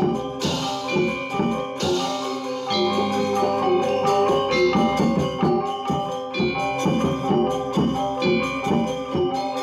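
Balinese gamelan gong ensemble playing an instrumental tabuh: struck bronze metallophones and kettle gongs ring in a steady, dense rhythm, with two sharp crashes in the first two seconds.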